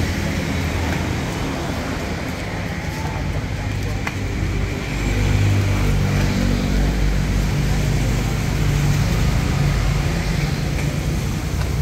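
A motor vehicle engine running steadily close by, growing louder about five seconds in, with people talking in the background.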